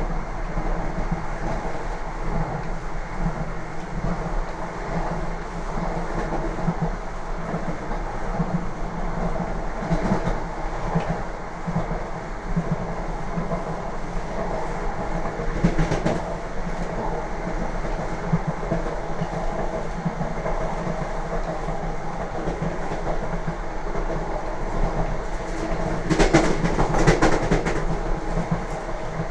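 Lastochka (Siemens Desiro RUS) electric train running, its wheels clattering steadily over the rails, with a louder burst of clatter near the end.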